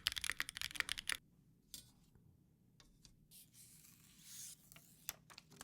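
Fast typing on a mechanical keyboard for about the first second, then a few scattered clicks and a soft brushing hiss.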